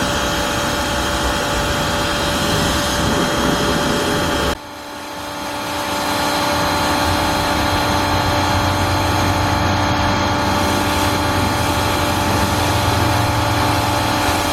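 Car engine running steadily at a constant speed. The sound breaks off abruptly about four and a half seconds in, then swells back over a second or so and holds steady.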